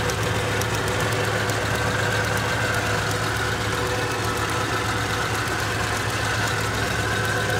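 Suzuki Mehran's three-cylinder petrol engine idling steadily with a misfire, which the workshop traces to the ignition coil wiring.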